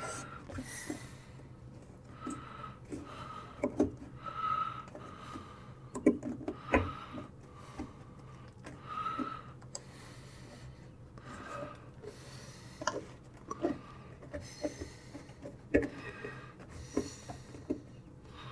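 Hands working a new rubber door bellow seal onto the door opening of a Whirlpool front-loading washer. The rubber rubs and creaks irregularly, with scattered small taps and clicks.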